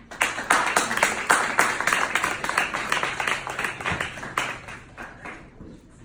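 A group of people clapping. It is loud at first, then thins out and stops about five seconds in.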